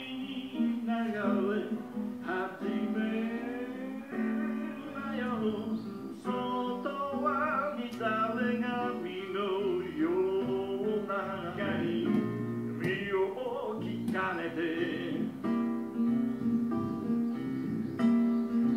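Live band music with acoustic and electric guitars strummed and picked under a sung melody.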